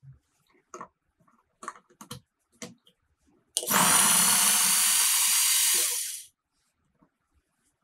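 Small battery electric mini chopper running for about two and a half seconds, its blades mincing peeled garlic cloves in a clear plastic bowl; the motor starts and stops abruptly. Before it, a few light plastic clicks as the motor head is fitted onto the bowl.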